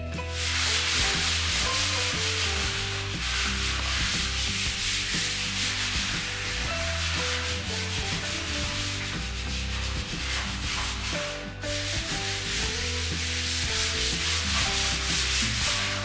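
Background music with a stepping bass line and melodic notes, under a loud continuous scratchy hiss with a fine grainy texture. The hiss breaks off briefly about three-quarters of the way through.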